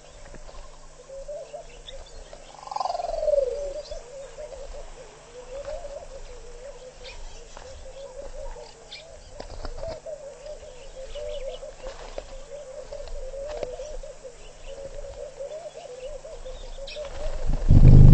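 Pied kingfisher's feathers rustling and ticking right against the microphone as it preens, over a steady chorus of birds calling at a waterhole. A loud falling call about three seconds in, and a loud low rumble near the end.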